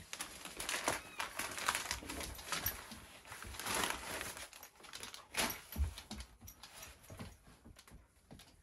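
Rustling and crinkling of a brown paper mailer as it is handled and torn open, with a dull bump about two-thirds of the way through.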